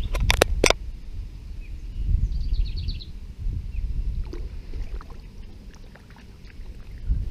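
Handling noise from a kayak as a smallmouth bass is held over the side and released into the river: a few sharp clicks about half a second in, a quick rattling series about two and a half seconds in, and scattered faint knocks over a low rumble.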